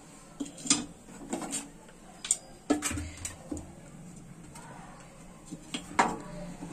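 Bread sandwiches frying in ghee on a hot tawa: scattered sharp pops and crackles, a dozen or so at uneven intervals, over a faint steady sizzle.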